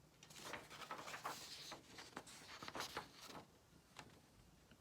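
Paper rustling as the pages of a printed booklet are handled and turned: a run of irregular scratchy brushing sounds that dies away about three and a half seconds in.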